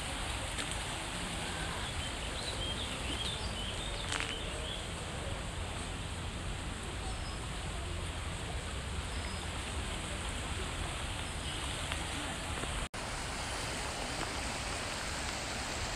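Steady rush of a shallow, rocky river running over stones and small rapids, with a few faint bird chirps a few seconds in.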